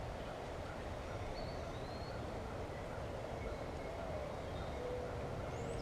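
Steady outdoor ambience by a creek, with a few faint, short bird chirps.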